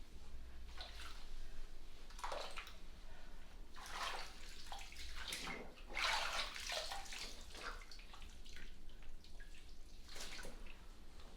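Bath water sloshing and splashing in a bubble-filled tub, in irregular swishes as someone moves in the water. The fullest splashing comes around six seconds in.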